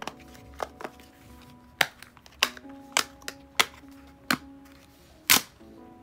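Silicone domes of a dimple fidget toy being pushed through and popping: about ten sharp pops at uneven intervals, the loudest near the end. Soft background music with held notes plays underneath.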